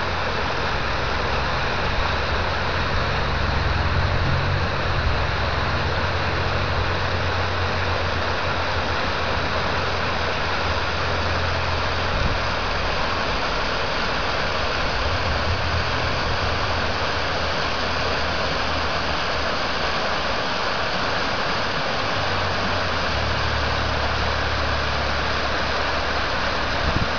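River water rushing steadily over and through a partly demolished low concrete dam, with a low rumble underneath that swells and fades in stretches.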